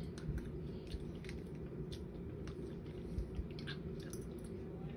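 A person eating Jello fast: wet chewing and irregular mouth smacks, over a steady low background hum.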